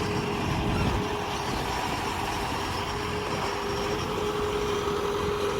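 Excavator running: a steady engine rumble with a constant whine held over it.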